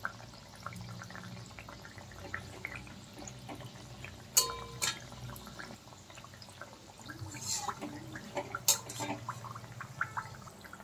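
Aloo nimki dough discs deep-frying in medium-hot oil in a metal kadai: a quiet, steady sizzle with small crackles and pops. A metal spatula clicks against the pan a few times.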